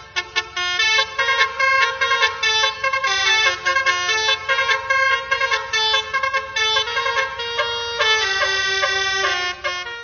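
Telolet-style musical car horns (a basuri horn set) playing a rhythmic dance tune, several horn tones sounding together and stepping between notes in quick succession.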